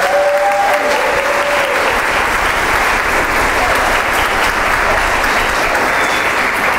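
Audience applauding, a steady mass of clapping hands, with a voice calling out briefly over it at the start.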